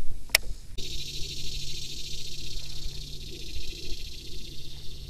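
A single sharp click, then a steady high-pitched insect buzz with a fast fine pulsing, over a faint low steady hum.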